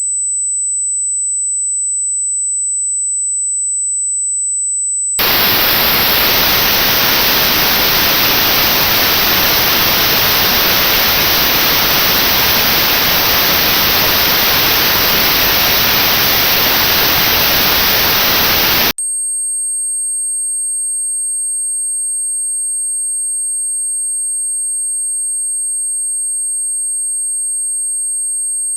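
Tinnitus-test signals: a steady, very high-pitched pure test tone, then about five seconds in it switches to loud notched white noise, an even hiss with a narrow band around the tone's pitch cut out. About nineteen seconds in the hiss stops abruptly and a steady, very high test tone returns, slightly higher in pitch than the first.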